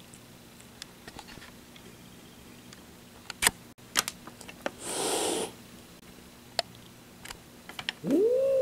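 A domestic cat hissing once, a short hiss about five seconds in, with a few sharp clicks before it. Near the end the cat starts a loud, drawn-out yowl that rises and then falls in pitch.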